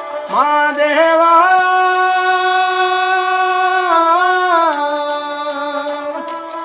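Rajasthani folk music: a long wordless held note, sung or bowed, scoops up at the start, holds steady, dips briefly about two-thirds in and then holds again. It is accompanied by a ravanahatha bowed fiddle and light jingling percussion.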